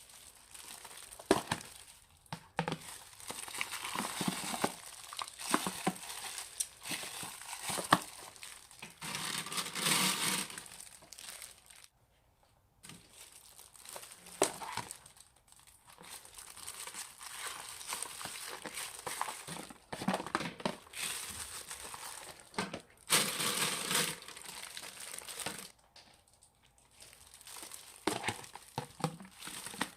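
Old slime being squeezed and stretched by hand, giving off an irregular crinkly crackling with sharp pops, broken by two short pauses.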